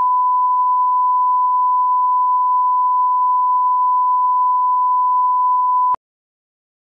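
A steady 1 kHz line-up test tone, the reference tone that goes with broadcast colour bars. It holds one even pitch and cuts off abruptly with a click about six seconds in.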